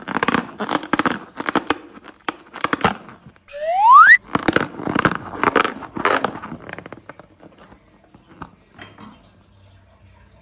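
Slime and a rubber balloon being squeezed and handled: dense wet crackling and crinkling clicks. About three and a half seconds in, a short squeak rises in pitch, the loudest moment. The crackling thins to a few faint clicks over the last few seconds.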